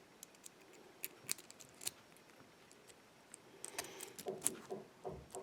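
Light metallic clicks and small rattles from a Russwin 6-pin lock cylinder being worked with a pinning shoe to push out the plug and gut the lock. A few scattered clicks come first, then a quicker cluster near the end.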